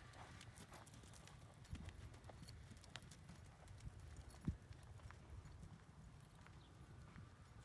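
Faint hoofbeats of a ridden horse cantering on soft arena sand, over a steady low rumble, with one sharper knock about halfway through.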